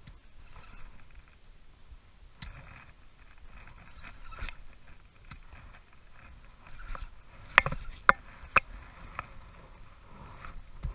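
A hooked largemouth bass being played from a canoe on a light spinning rod: intermittent water splashing and the whir of the spinning reel being cranked, with a few sharp knocks about two-thirds of the way through.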